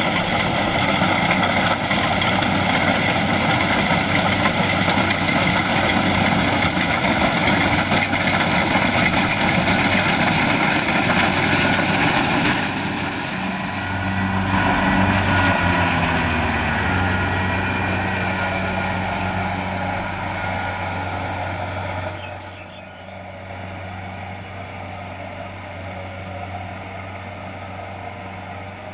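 Kubota DC-70 Plus rice combine harvester running, loud with a dense mechanical rush for the first half. Around the middle the engine note dips in pitch and settles, and near the end the sound drops to a quieter, steady engine hum.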